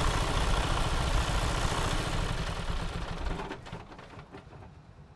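A vehicle engine running with a deep rumble, fading away over the last two seconds or so.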